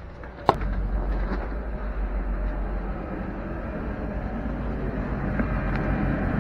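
A boat's engine-compartment blower fan clicks on about half a second in and then runs with a steady hum, airing the engine bay before the engines are started.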